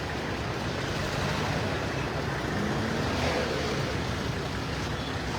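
Steady rumble of vehicle engines and road traffic, with no distinct single event.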